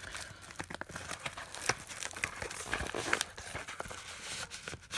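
Yellow padded bubble mailer crinkling and rustling in the hands as a DVD case is worked out of it, with irregular small clicks and scrapes.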